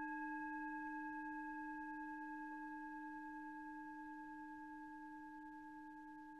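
A single long bell-like ringing tone with several steady overtones, slowly fading away.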